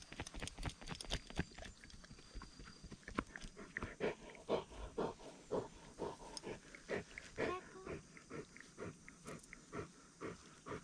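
A Bernese Mountain Dog panting close to the microphone, in quick, even, rhythmic breaths that start about four seconds in. Before that there are sharp clicks and rustles as the dog moves in the grass.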